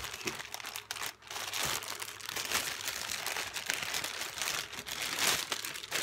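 Clear plastic packaging bag crinkling and crackling continuously as hands pull a spinning reel out of it.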